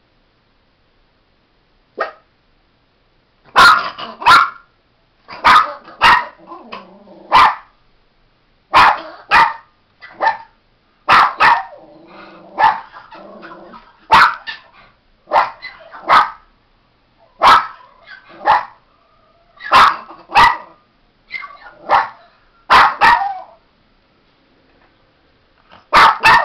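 Miniature Pinscher barking in repeated sharp bouts of single and doubled barks, starting about three seconds in after a quiet start, with another short pause near the end.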